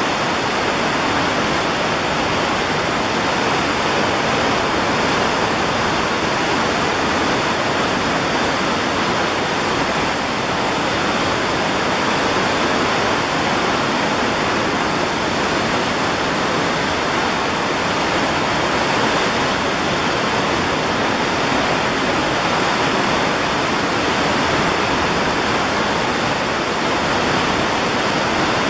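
Ottawa River in spring flood rushing through whitewater rapids: a loud, steady rush of churning water with no breaks.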